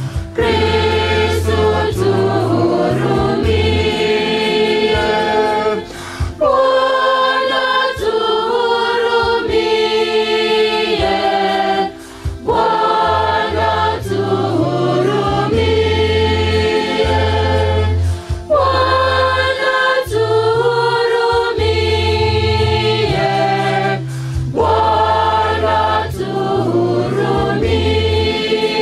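A choir singing a hymn in phrases of about six seconds, over a steady bass accompaniment.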